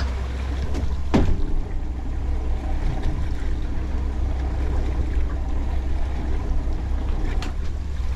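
Steady low rumble of wind and water around a small fishing boat offshore, with a sharp knock about a second in and a fainter one near the end.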